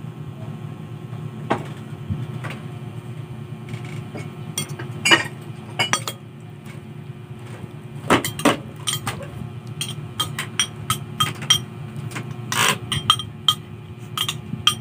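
Metal spoon clinking and scraping against a ceramic plate in a string of sharp clinks, sparse at first and coming thick and fast in the second half, over a steady low hum.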